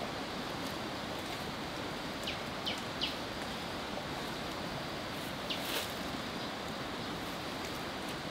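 Dry palm fronds rustling as they are handled and fixed onto a bamboo frame, over a steady outdoor hiss. A bird gives a few short falling chirps, in two groups about two and five and a half seconds in.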